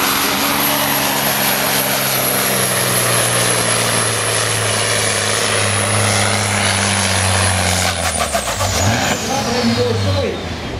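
Old Volvo N-series truck's tuned diesel engine at full throttle, pulling a weight sled, running hard and steady with a high turbo whistle. About eight seconds in, the throttle comes off: the engine note breaks up and the turbo whistle winds down as the pull ends.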